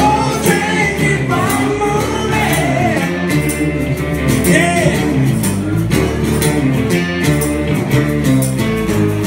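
Live acoustic rock band playing: strummed acoustic guitar, bass and percussion keeping a steady beat, with a man singing lead.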